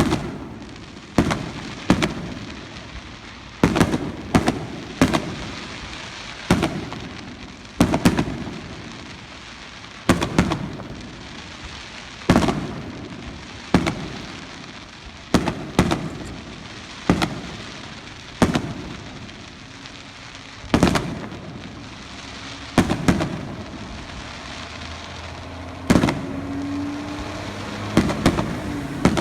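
Aerial firework shells bursting in a steady series of loud bangs, one every second or two, each followed by a fading rumble of echo and crackle.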